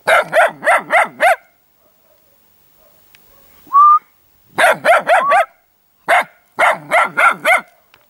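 A puppy barking in quick high-pitched yips, in runs of four or five with short pauses between, and a short rising whistle about four seconds in.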